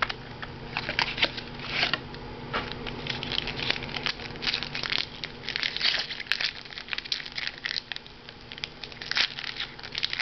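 A plastic trading-card pack wrapper being torn open and crinkled by hand, in a run of irregular crackles and rustles.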